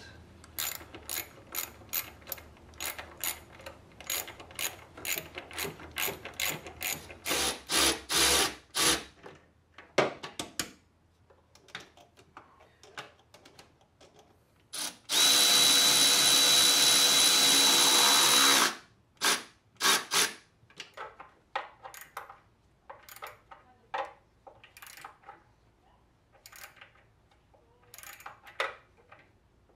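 Ratchet wrench clicking in rapid short strokes, then a cordless electric ratchet running continuously for about three seconds with a steady high whine, followed by more scattered ratchet clicks as fasteners are run down.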